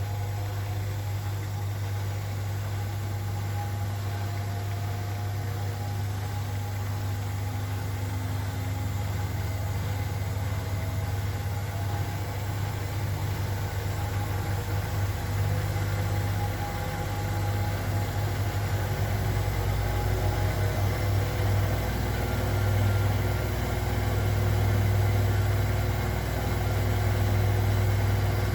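Zanker EFX 4875 front-loading washing machine in its final spin, the drum turning at high speed with a steady low motor hum and faint whining tones. It grows a little louder in the second half, with the low hum pulsing.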